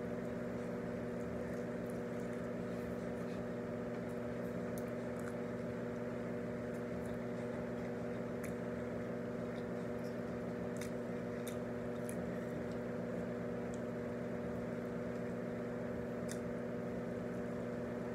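Steady mechanical hum, with faint, scattered wet clicks of chewing as a cheeseburger and fries are eaten.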